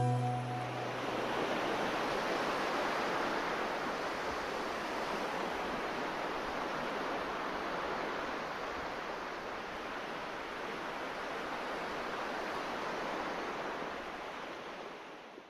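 Steady rushing noise with no tone or rhythm. It fades over the last couple of seconds, then cuts off abruptly.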